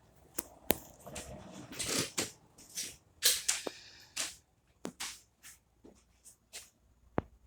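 Irregular sharp clicks and knocks mixed with short rustling scrapes, thinning out toward the end.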